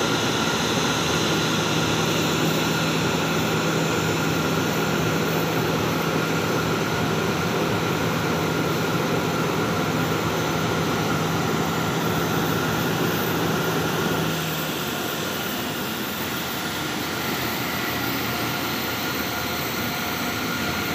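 Boeing 737-800 jet engines (CFM56-7B turbofans) running steadily with a loud rushing noise. A low steady hum underneath cuts off about two-thirds of the way through, and the sound gets slightly quieter after that.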